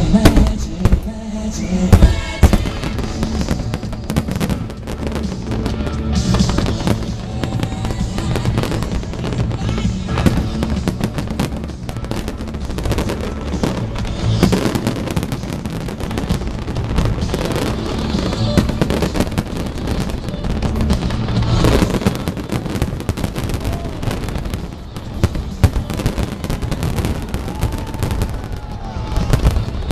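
Fireworks finale: a dense barrage of bangs and crackling bursts over music, with especially loud bangs about two seconds in and again about twenty-two seconds in.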